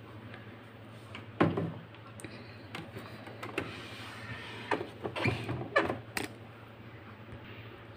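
Plastic clicks and knocks from the Usha Janome Stitch Magic sewing machine's body and parts being handled, about eight in all, the loudest about one and a half seconds in. A faint steady low hum runs underneath.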